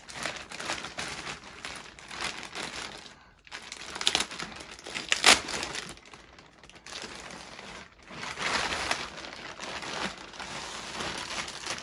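Plastic poly mailer bag crinkling and rustling as it is handled, opened and a handbag is pulled out of it, with a sharp, loud crackle about five seconds in.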